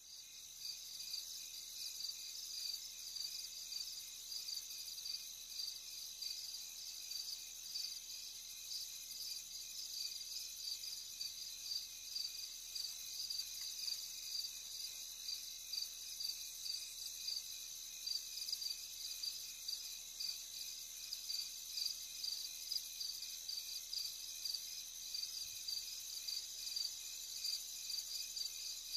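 Insects chirping in a steady, high-pitched, rapidly pulsing trill.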